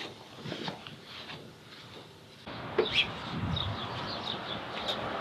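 A few soft footsteps, then a steady outdoor hush cuts in with small birds chirping repeatedly. Near the same moment a glass entrance door is pushed open with a click and a low thud.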